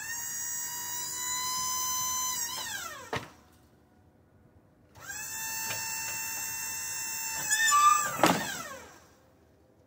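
Small electric motor on a Wood-Mizer LT35 sawmill whining steadily, run twice for a few seconds each time, its pitch falling as it winds down after each run. A click follows the first run and a loud clunk comes near the end of the second.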